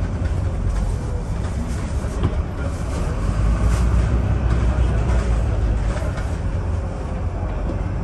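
Inside a moving double-decker bus, heard from the upper deck: a steady, loud low engine and road rumble with a few light rattles.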